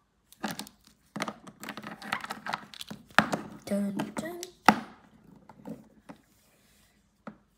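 A child's voice, speaking and making play noises, with two sharp knocks, one about three seconds in and one nearer five seconds; it goes quiet for the last couple of seconds.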